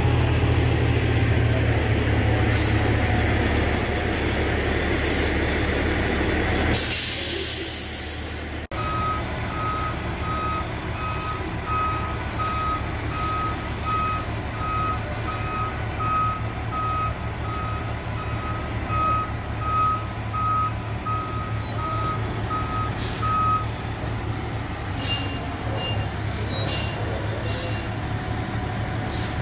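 Oshkosh Striker airport fire truck's diesel engine running low and close, with a loud hiss of air about seven seconds in, typical of an air-brake release. Then the truck is heard at a distance with its reversing alarm beeping evenly about twice a second for some fifteen seconds over the engine.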